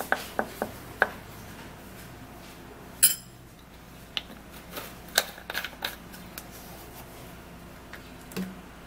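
A spoon clinking and tapping against a bowl in a string of sharp separate clicks as dried ginger powder is spooned out. A few light clinks come at the start, the loudest strike about three seconds in, and a quick cluster around five to six seconds.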